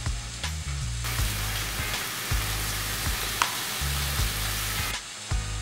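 Dried herb seasoning shaken out of a plastic shaker jar over a bowl of sliced peppers and onions, a steady hissing rattle that starts about a second in and stops shortly before the end.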